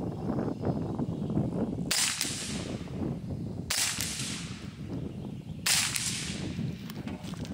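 Three suppressed shots from a Ruger Mark IV .22LR pistol, a couple of seconds apart: each a short, sharp crack with a fading hiss. A steady low rumble sits under them.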